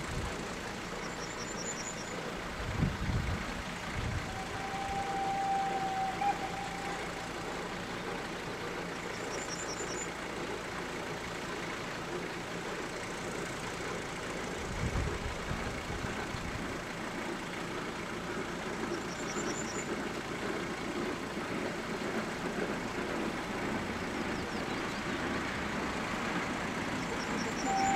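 Open-air background noise with faint vehicle engine sound and two short low rumbles. About four seconds in, one steady whistle tone sounds for about two seconds.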